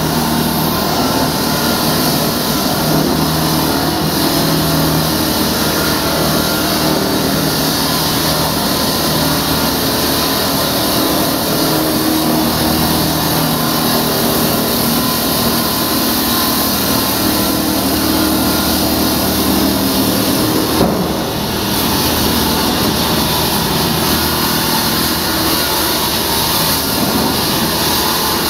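Diamond concrete-cutting saw running steadily and loudly, with a brief dip about three quarters of the way through.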